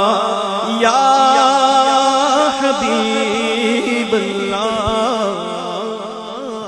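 A male naat reciter's voice drawing out a long, wavering melismatic phrase without clear words, the pitch sliding and trilling up and down. The singing fades away toward the end.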